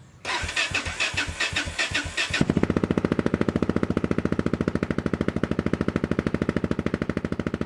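Yamaha XT660Z Ténéré's single-cylinder engine being turned over on the electric starter for about two seconds, then catching and settling into an even idle, a quick steady thumping of single firing strokes.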